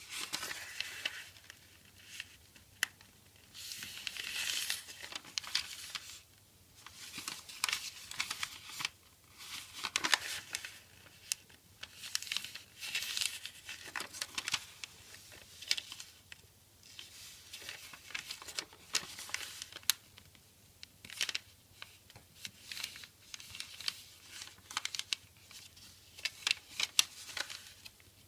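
A square sheet of origami paper being folded by hand: repeated bursts of rustling and crinkling, with sharp little snaps as folds are pressed flat.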